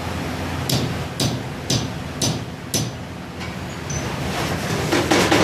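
Steady rushing roar of a petcoke-fired melting furnace, with five sharp metallic taps about half a second apart in the first three seconds.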